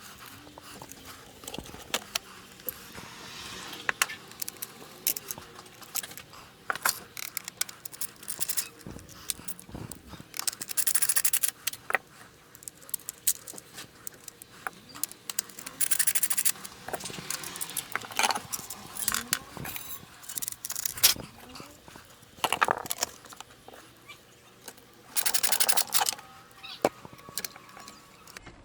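Hand work with tools and small parts: scattered clicks, knocks and rattles, with three louder scraping, rustling passages of about a second each, about a third of the way in, just past halfway and near the end.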